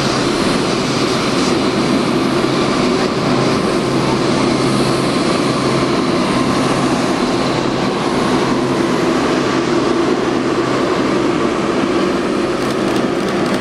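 Boeing 747-8F freighter taxiing past, its four GEnx jet engines running at taxi power: a loud, steady jet hum with low tones over a broad rushing hiss.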